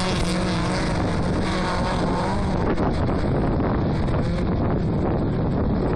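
Several autocross race cars running on a dirt circuit, engines revving, the pitch rising and falling.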